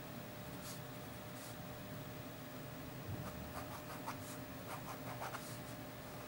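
Ballpoint pen scratching on squared paper in short drawing and lettering strokes, faint: a couple of strokes in the first two seconds, then a quicker run of strokes in the second half.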